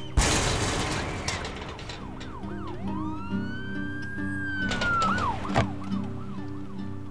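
A siren wailing and yelping over a pulsing music score: short rising-and-falling whoops, then one long rise that holds and falls away. A loud crash-like hit opens it, and there is a sharp knock about five and a half seconds in.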